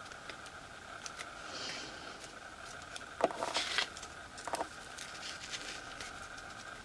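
Rustling and light taps from a burlap ribbon bow and transfer-tape sheets being handled and moved over a wooden round, loudest for about a second midway, over a faint steady high hum.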